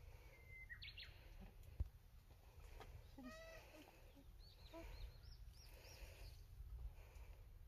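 Quiet outdoor ambience with faint distant bird calls: a short gliding whistle near the start, then a run of short, repeated high chirps in the second half. A single soft low thump about two seconds in.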